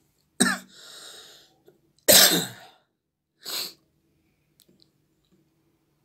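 A person coughing three times, the second cough the loudest.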